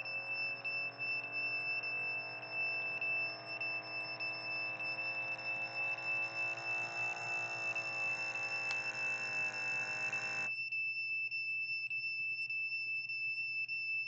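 Handheld electronic meter sounding a steady, high-pitched alarm tone with faint regular ticks. Under it runs a droning cluster of lower electronic tones that wavers slowly in pitch and cuts off suddenly about ten and a half seconds in.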